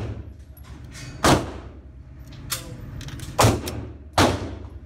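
Gunshots at an indoor range, three loud reports with echoing tails: about a second in, and twice in quick succession near the end, with a fainter knock between them.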